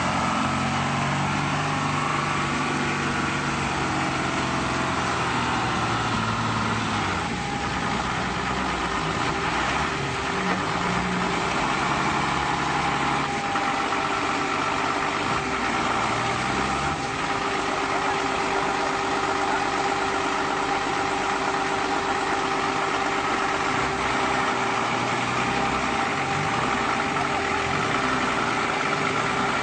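Off-road 4x4's engine running hard at steady revs while its wheels spin and churn in deep mud; the engine pitch shifts a few times.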